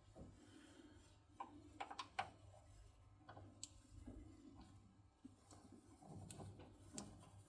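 Faint, scattered small clicks of lock cylinder parts being handled and fitted together during reassembly of the pins. There is a quick cluster of clicks about two seconds in and single ones later, over a low steady hum.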